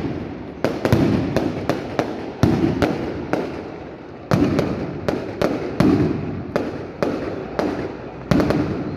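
Aerial fireworks going off in quick, irregular succession: about two sharp bangs a second, each trailing off in a low rumbling echo.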